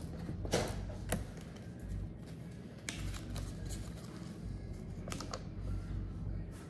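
Small plastic toy and its packaging being handled: scattered light clicks and short rustles.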